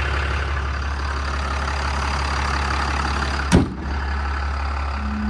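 Ram 5500's Cummins 6.7-litre inline-six turbo diesel idling steadily, with one sharp thump about three and a half seconds in.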